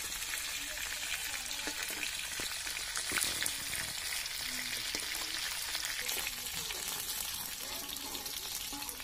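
Pangas fish pieces sizzling steadily as they fry in oil in a large iron kadai. A metal spatula scrapes and knocks against the pan now and then as the pieces are turned.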